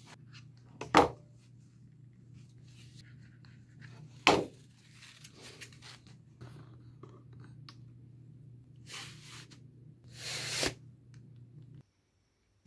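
Cardboard sword parts being handled and worked by hand: two sharp knocks and several shorter scraping or tearing noises of cardboard, over a low steady hum that cuts off near the end.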